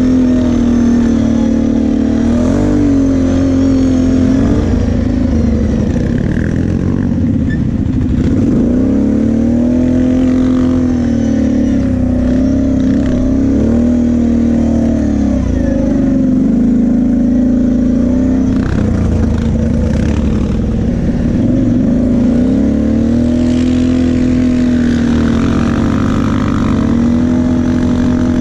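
Sport quad's engine heard from the rider's seat while under way. Its pitch rises and falls again and again as the throttle is opened and eased, with brief drops in revs about 8, 16 and 22 seconds in.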